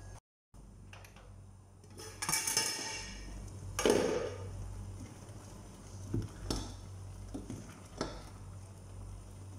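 Stainless steel pot lid clattering and ringing as it is taken off, then a loud clank. A cooking spoon then clinks and scrapes against the pot several times while chicken feet are stirred in their sauce, over a steady low hum.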